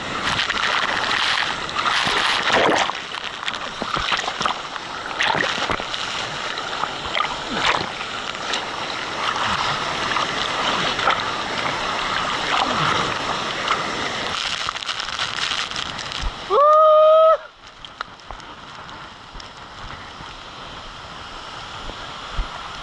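Havasu Falls pouring into its plunge pool, a loud steady rush and splash of water close to the microphone at water level. About three-quarters of the way through, a loud, short pitched sound rises and holds for under a second, then a quieter steady rush of creek water follows.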